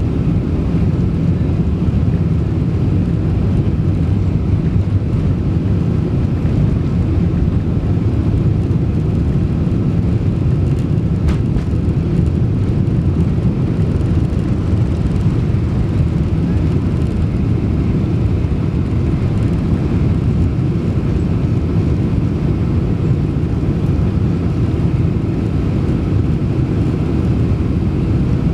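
Boeing 747-400 engines and airflow during takeoff, heard from inside the passenger cabin: a loud, steady low rumble with faint steady tones above it.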